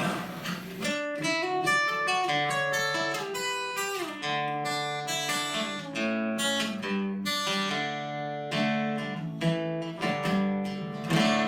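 Acoustic guitar picking a slow melody with ringing, overlapping notes, starting about a second in.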